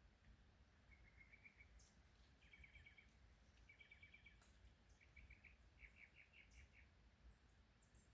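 Near silence: faint outdoor ambience with short chirping trills repeating several times, over a faint low rumble.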